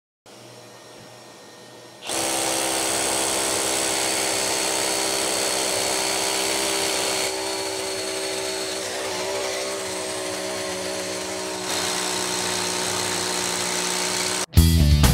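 Milwaukee M18 FUEL cordless SDS-plus rotary hammer drilling into concrete. It starts about two seconds in and runs steadily, loud, with a brief dip near the end.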